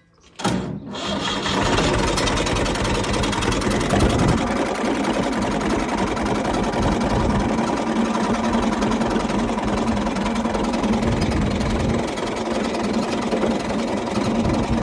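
A farm tractor's diesel engine starts about half a second in and then runs steadily.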